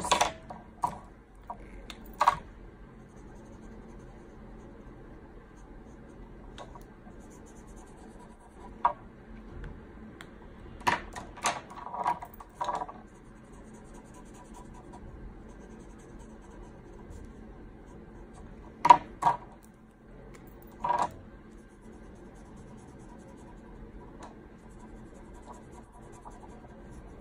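Felt-tip markers scratching faintly on paper as a drawing is coloured in, with a few sharp clicks and knocks scattered through: a quick run of them before the middle and two louder ones later.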